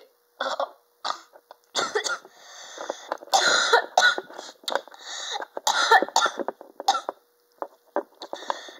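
A child's put-on, exaggerated coughing fit: a long run of coughs of uneven length with short breaks between them, acted for a toy character.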